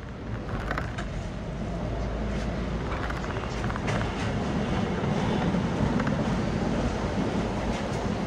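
Hong Kong double-decker electric tram running alongside and drawing to a halt: a low rumble that grows louder, with scattered creaks and clicks from the wheels and body.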